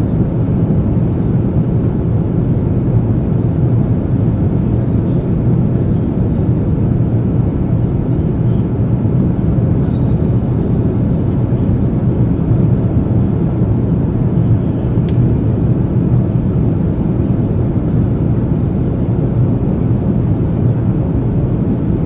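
Steady in-flight cabin noise of an Airbus A330-300, heard from a seat beside the wing: a loud, even, low rush of engine and airflow.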